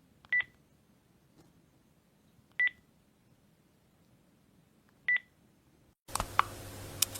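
Electronic button beep: three short, high-pitched beeps, each a fraction of a second, about two and a half seconds apart. About six seconds in, a low hum with a few clicks begins.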